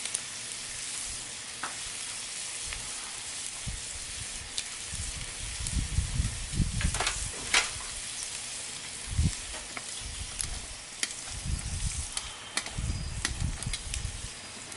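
Wood bonfire burning with a steady sizzling hiss and scattered sharp crackles and pops. Low rumbling thumps come and go, the loudest about halfway through.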